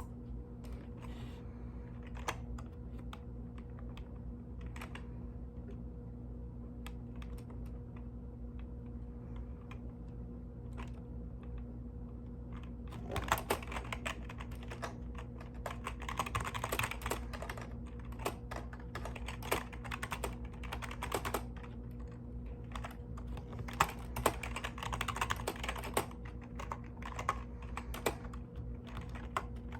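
Typing on a mechanical keyboard: a few scattered keystrokes at first, then fast continuous typing from about halfway in. A steady low hum runs underneath.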